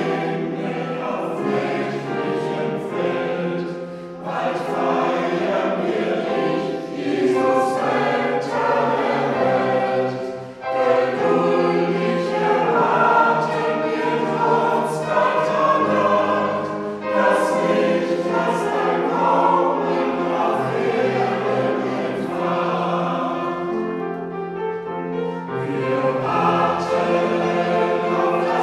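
Church choir singing a German Christmas hymn in several-part harmony, with short breaths between phrases.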